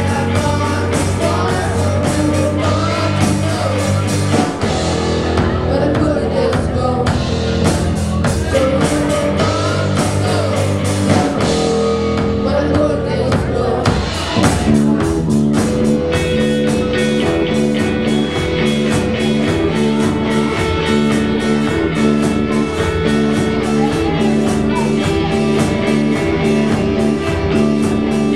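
Live amateur rock band playing electric guitars, bass guitar and drum kit, with a sung vocal line. About halfway through the singing stops and the band settles into a repeating instrumental guitar riff.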